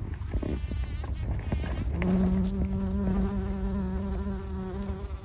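Bumblebee buzzing in flight: a steady hum that starts about two seconds in and fades out near the end.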